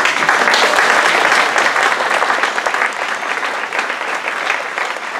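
Audience applauding, breaking out all at once as the music stops, loudest in the first two seconds and then easing a little.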